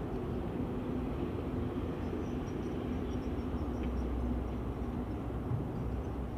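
Steady low hum of a running motor that fades about five seconds in, with faint high chirps in the middle.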